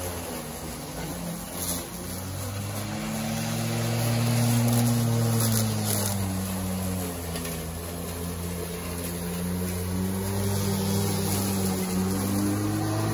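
Greenworks 20-inch 12-amp corded electric lawnmower running while cutting grass, a steady motor hum that wavers slowly in pitch and swells louder partway through.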